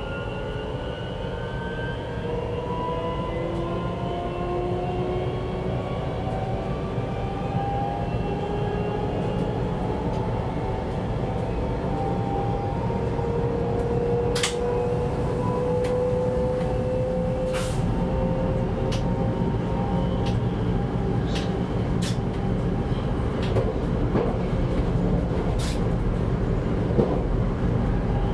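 Bombardier Z50000 electric multiple unit running at about 110 km/h, heard from the driver's cab. A steady rumble of wheels on rail sits under a motor whine whose several tones glide slowly upward and fade after about twenty seconds. From about halfway on, sharp clicks come at irregular intervals.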